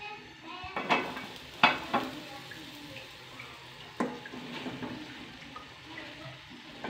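A few sharp metal clanks of the pot lid and aluminium pot about one to two seconds in, then a wooden spoon stirring cauliflower curry in the pot over a light sizzle, with a knock against the pot about four seconds in.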